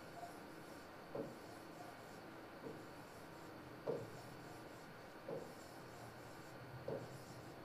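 Pen writing on a board: faint scratches and taps as letters are written one under another, five short strokes spaced a second or so apart, the one about four seconds in the loudest.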